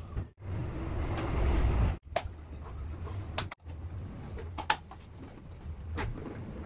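Steady low rumble, loudest from about half a second to two seconds in, with a few sharp clicks and scrapes of a metal putty knife working joint compound onto drywall. The sound breaks off abruptly several times.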